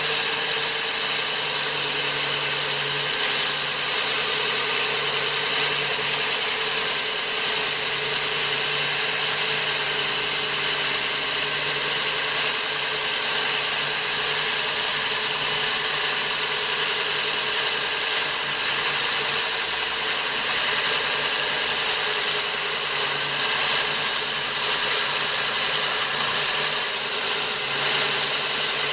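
Cuttronix CM-10S3 core drill motor (230 V single-phase, 3.0 kW) running under load as its 200 mm core bit cuts down into the slab. It makes a steady, unchanging drone with a high hiss.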